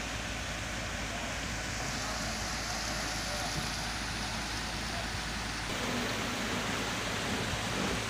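Steady low engine rumble under an even hiss, with no distinct events; the deepest rumble drops away about two-thirds of the way through.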